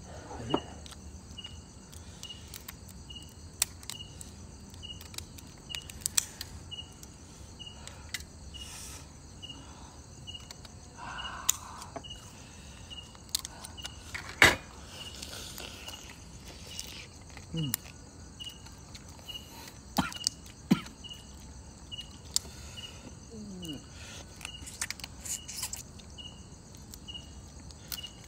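A cricket chirps steadily, about twice a second. Over it come scattered sharp cracks and clicks of crab shell being broken open and picked apart by hand. The loudest is a single crack about halfway through.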